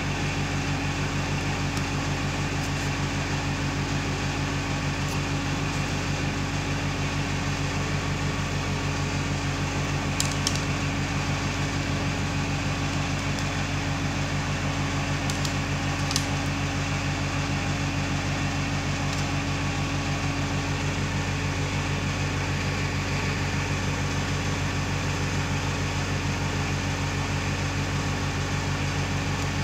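Steady low hum of running machinery with a fast, even pulse. A few short clicks about ten and sixteen seconds in.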